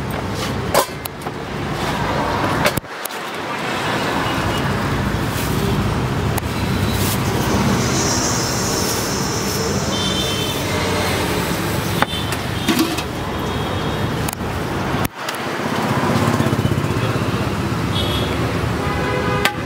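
Steady roadside traffic noise with a few sharp knocks or clinks, cutting out briefly twice.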